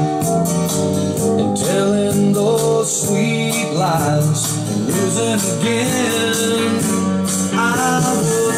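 A song with a singing voice, guitar and a steady beat, played from a vinyl record on a Turner 202 turntable through a Turner 310 amplifier.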